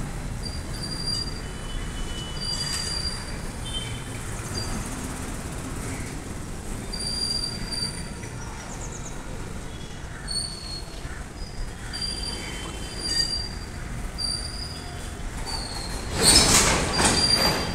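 A slow-moving goods train of freight wagons rolling past, with a steady low rumble and many short, high-pitched wheel squeals coming and going. Near the end a louder burst of clatter and screech is the loudest sound.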